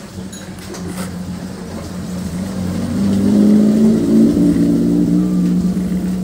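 Two-stroke engine of a Newest 258 chainsaw running steadily, growing louder about three seconds in and then easing off a little.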